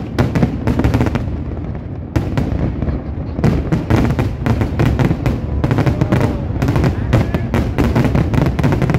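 Fireworks finale: aerial shells bursting in a rapid string of bangs and crackles. The bangs ease off briefly from about one and a half to three seconds in, then build to a dense barrage.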